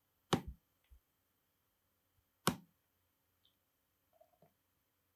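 Computer mouse clicks while working on screen: a sharp click shortly after the start and another about two seconds later, with a few fainter ticks between, over quiet room tone.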